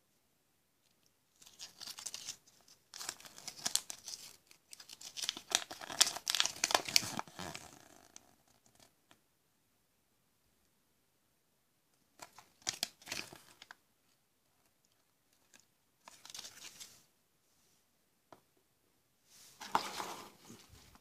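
Thin plastic wrapper and folded paper leaflet from a Kinder Surprise toy crinkling and tearing as they are handled: several seconds of crackling rustle, then three short rustles later.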